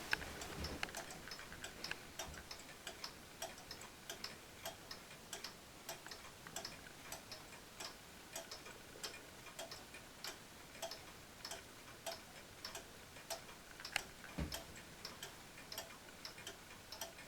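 Chain-driven mechanical clock ticking faintly and steadily, about two ticks a second, with one louder knock and a low thump about fourteen seconds in.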